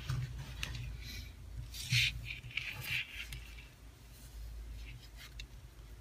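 Handling noise: a PVC pipe heater body being turned over in the hands on a tabletop, with scattered light rubs and taps, the loudest about two seconds in, over a steady low hum.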